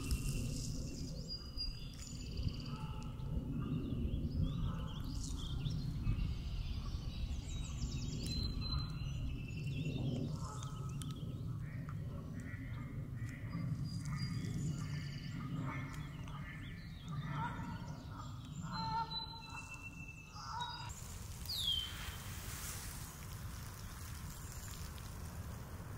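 Wild birds calling: scattered short notes, a run of repeated calls in the middle, and one whistled note falling in pitch near the end, over a steady low rumble.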